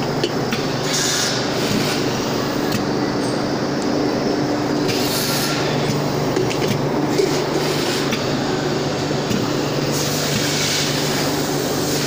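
Pad printing machine running in a workshop: a steady mechanical hum, with three short hisses spaced a few seconds apart.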